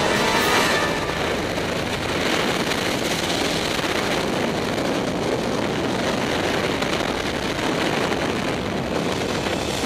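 Steady rush of wind over a skydiving camera's microphone during the exit from the jump plane and freefall.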